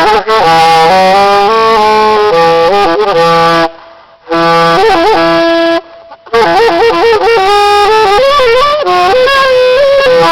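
Saxophone playing a melody in loud phrases, with quick runs and bent notes, breaking off briefly about four seconds in and again about six seconds in.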